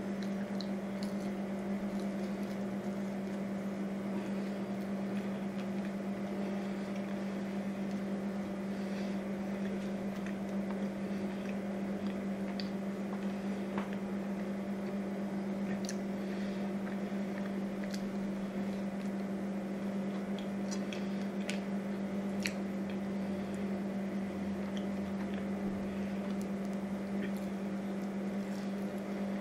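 Quiet chewing and squishy mouth sounds of someone eating French fries, with scattered small clicks. A steady low hum lies under them and is the loudest thing throughout.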